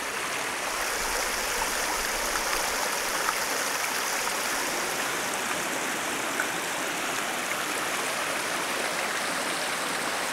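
Creek water rushing steadily over rock ledges and small rapids.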